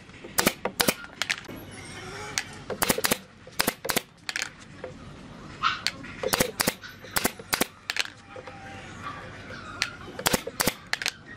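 Sharp knocks of tools striking wood, often two or three in quick succession, coming at irregular intervals, as in hammering or mallet work on timber.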